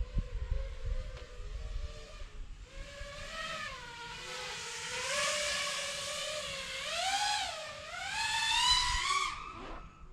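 Nazgul Evoque F6D 6-inch FPV quadcopter's brushless motors and propellers whining, the pitch rising and falling repeatedly with the throttle. The whine climbs to its loudest and highest about nine seconds in, then drops away. Low rumble sits under the first couple of seconds.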